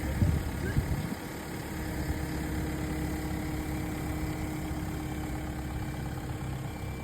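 Excavator's diesel engine running steadily, with a few low thuds in the first second.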